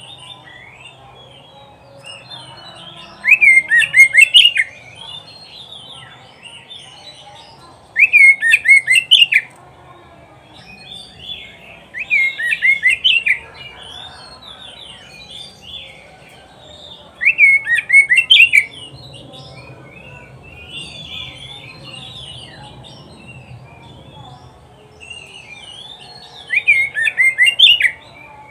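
Oriental magpie-robin (kacer) singing: five loud phrases of rapid, sharp notes, each about a second long and several seconds apart, over quieter continuous twittering.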